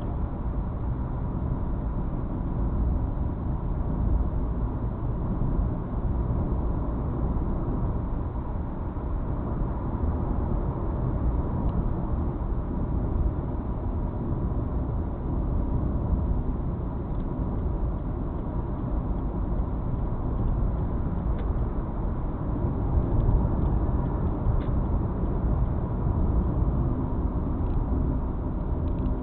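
Volkswagen Polo sedan with a 1.6-litre CWVA engine and automatic gearbox driving, with steady engine and road noise. A faint steady high whistle runs under it, the whistle the car makes on acceleration.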